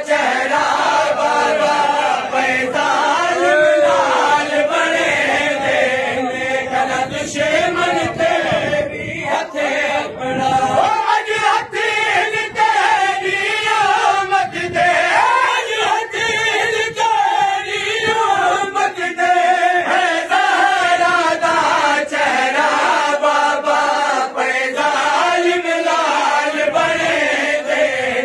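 A group of men chanting a Saraiki noha (Shia lament) together in a loud, continuous call-and-response, led by reciters on a microphone, with a pulse of chest-beating (matam) under the voices.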